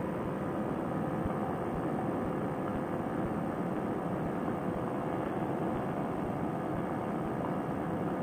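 Fresh Breeze Monster paramotor engine and propeller running steadily at cruise power in flight, its exhaust, fitted with a repaired silencer, sounding pretty good.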